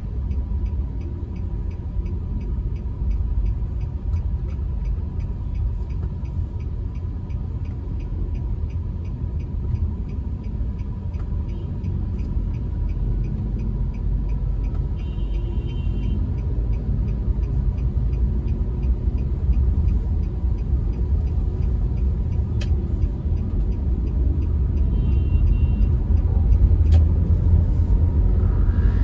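Steady low road and engine rumble inside a moving car's cabin, growing louder in the last few seconds as the car gathers speed onto an open highway.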